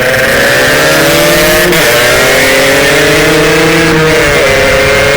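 Yamaha RX-King two-stroke motorcycle engine running hard under acceleration. Its loud note climbs steadily, with a brief dip about a second and a half in and again near the end.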